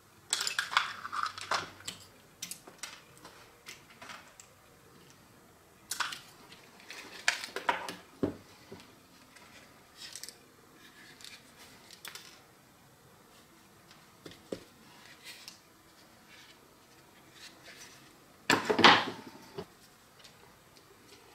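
Irregular clicks, knocks and scrapes of the small plastic and metal parts of an old electric drill being handled and pried apart on a workbench. The loudest is a longer scraping rattle near the end.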